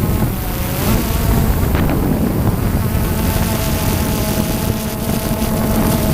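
DJI Phantom 2 quadcopter's motors and propellers humming with a steady whine that wavers slightly in pitch, under a heavy rumble of wind buffeting the microphone.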